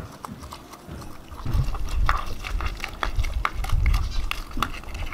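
Dogs licking and chewing a raw egg off concrete right beside the microphone: wet lapping and smacking with many sharp clicks, and heavy low thumps from about a second and a half in.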